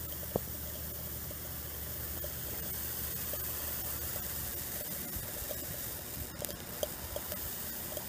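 Microwave-oven transformer, its secondary rewound for heavy current, humming steadily while it heats a soda can holding a little water. Over the hum comes a hiss with small pops and crackles from the hot can, growing more frequent from about five seconds in. There is one sharp tick near the start.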